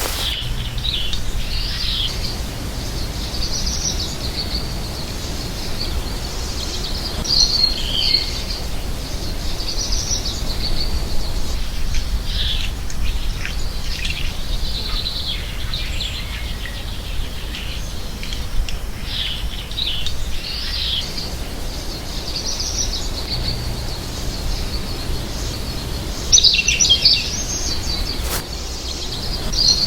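American goldfinch singing: a run of rapid twittering warbles and chirps in short phrases, with a louder burst of song near the end, over a steady low rumble of background noise.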